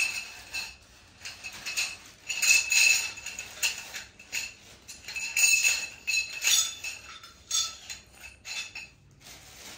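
Hard objects clinking and rattling together in irregular bursts, many hits leaving a short ring.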